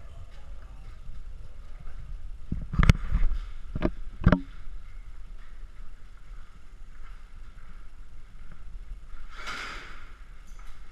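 Player movement and gear noise: a low steady rumble with three sharp knocks in the first half, the second and third about half a second apart, and a short rush of noise near the end.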